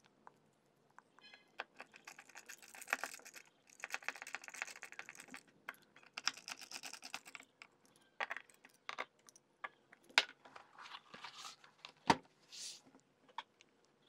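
Hands handling a laptop and small tools on a desk mat: faint bursts of rattly clicking and tapping, then separate knocks, with one louder knock near the end.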